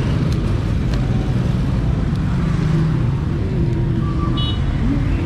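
Steady road traffic noise: engines of passing vehicles and idling motorcycles making a continuous low rumble, with a short high beep about four seconds in.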